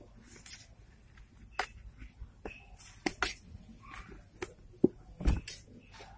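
Two month-old kittens scuffling inside a bucket: scattered claw scratches and taps on the bucket's sides and floor, with a louder bump a little after five seconds in.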